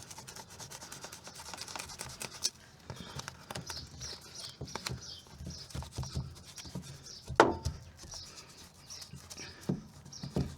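Adhesive sound-deadening sheet being handled and pressed into a car's interior panel: small rustles, scratches and light taps, with one sharp knock about seven seconds in.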